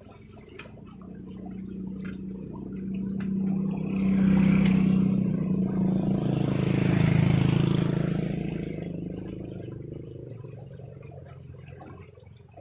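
A motor vehicle passing by: its engine grows louder, is loudest in the middle with a slight drop in pitch, then fades away.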